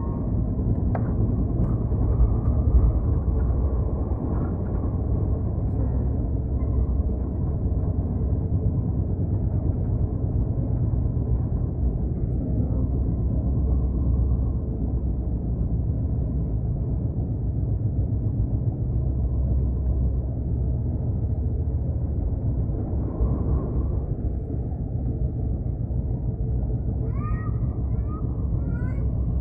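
Train running with a steady low rumble. Near the end come a few short, squeaky cries that bend up and down in pitch.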